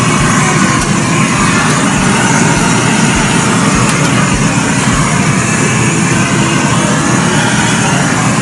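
Handheld gas blowtorch running with a steady rushing flame as it sears cubes of beef on a grill.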